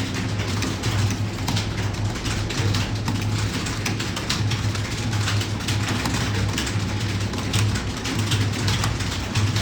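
Computer keyboard keys being typed rapidly, an irregular stream of clicks over a steady low hum.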